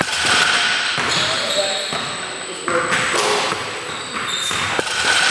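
A basketball game in the background: a ball bouncing on the court with players' voices, really loud.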